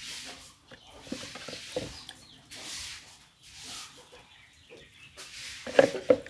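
Domestic poultry calling, with a louder call near the end, over dry rustling as a hand stirs duckling feed pellets on paper.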